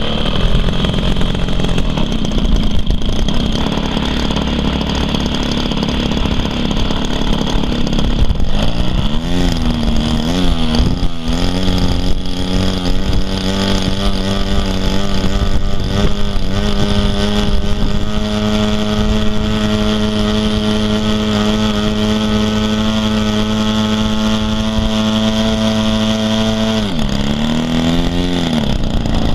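Radio-control model aircraft engine being run up on the ground over a steady rushing noise. It runs rough and low at first. From about 8 seconds in it is revved up and down several times, then holds a steady speed, and near the end it drops back sharply with one more brief rise and fall.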